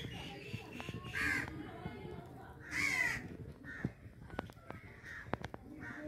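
Crow cawing twice, loudly, about one and three seconds in, with a few sharp pops and crackles from a wood and coconut-husk fire burning under a pot.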